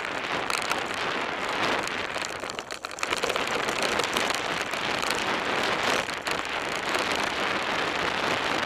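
Mountain bike's knobbly tyres rolling over a dry dirt and gravel singletrack, a steady gritty hiss.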